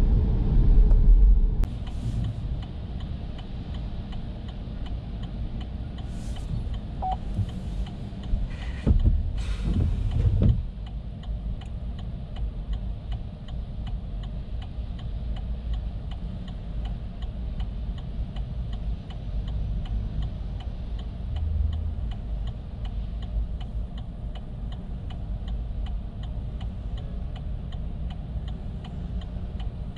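Chevrolet Bolt's turn-signal indicator ticking steadily in the cabin, about two to three clicks a second, over a low rumble of road and traffic. The rumble drops after the first second or so. A few louder swishes come about a third of the way in.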